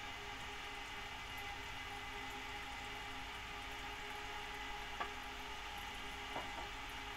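Twin-fan aquarium cooling fan on the tank lid running with a steady whirring hum, with two faint clicks near the end.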